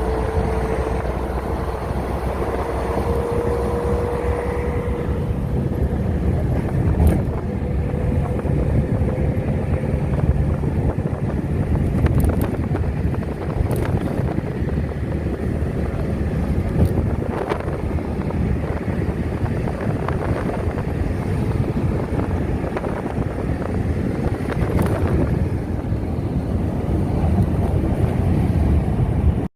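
Steady low rumble with wind noise on the microphone, a faint tone drifting slightly upward in the first half, and a few sharp clicks.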